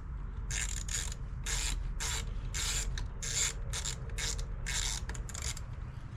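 Ratchet wrench clicking in short back-and-forth strokes, about two a second, as a fastener is turned.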